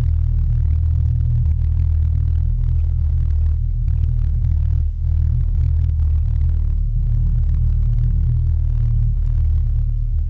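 Steady low rumble picked up by a GoPro in its waterproof housing, towed underwater on a downrigger cannonball while trolling, with an even drone held in the lowest notes.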